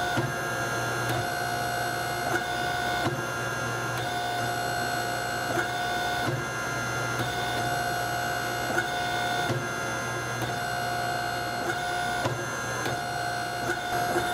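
Coal Iron Works air power hammer running with a steady machine hum, its ram striking hot steel in short blows about once a second as a blade is forged.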